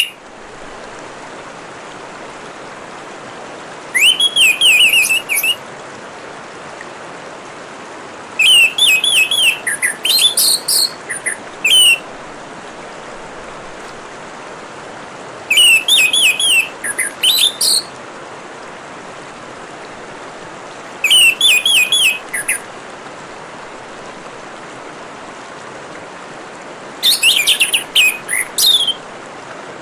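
Orange-headed thrush singing in five separate phrases of quick, sliding whistled notes, over a steady hiss of trickling water.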